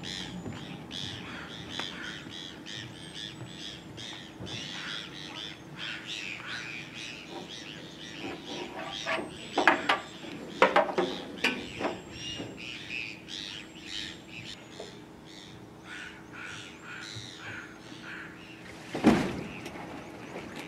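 Birds chirping over a faint low steady hum. A cluster of sharp knocks comes about ten seconds in and one loud thump near the end as the floatplane is handled at the wooden dock.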